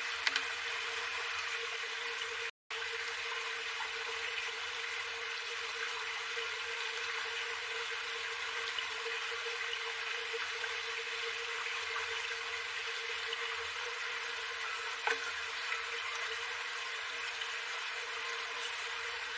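A steady hiss over a faint steady low tone, briefly cutting out to silence about two and a half seconds in.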